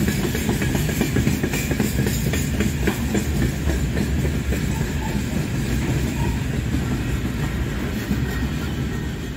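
Freight train of open gondola wagons rolling past: a steady heavy rumble of steel wheels on rail with many sharp wheel clicks, thinning a little toward the end.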